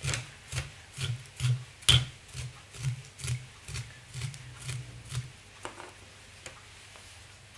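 Velcro raked repeatedly through blister dubbing spun in a dubbing loop, about two strokes a second, teasing the fibres out; one stroke about two seconds in is louder, and the strokes stop a little past halfway.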